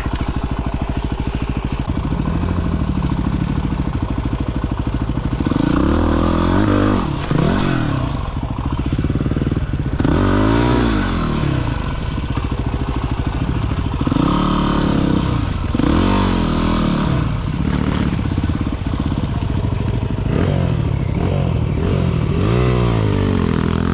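Single-cylinder four-stroke dirt bike engine at low, even revs, then revved up and down repeatedly in short rising and falling swells as it climbs rough, trackless ground.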